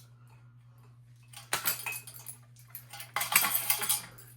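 Small hard objects clinking and rattling against each other in two short spells, about a second and a half in and again about three seconds in, over a faint low steady hum.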